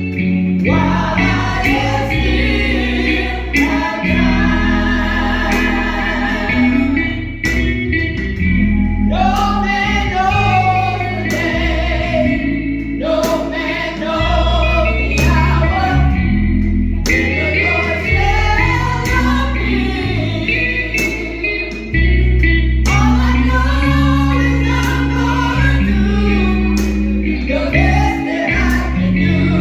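Gospel song with singing voices over a steady beat, bass and instruments.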